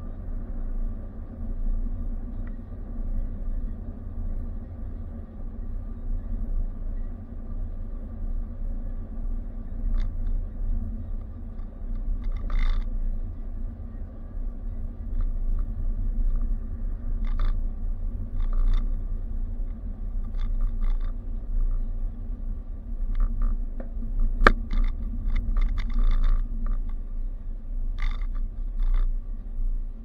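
Road and engine noise inside a moving car's cabin: a steady low rumble with a faint steady hum. Scattered small clicks and rattles come in the second half, with one sharper knock near the end.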